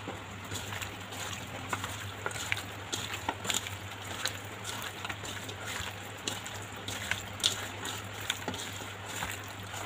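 A hand squishing and turning raw chicken pieces in a wet yogurt-and-spice marinade in a stainless steel bowl: irregular wet squelches and small clicks, over a steady low hum.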